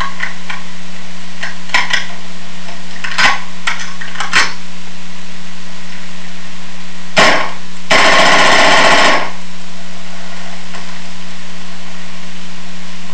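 Stock AR-15 fitted with a Tac Trigger, firing: one shot about seven seconds in, then a rapid burst lasting just over a second, the device letting the semi-automatic rifle fire at a near full-auto rate. A few light clicks of the rifle being handled come before the shots.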